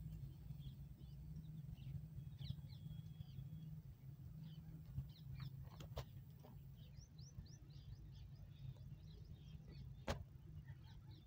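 Faint birds chirping over a low steady hum, with a sharp click about six seconds in and another near the end.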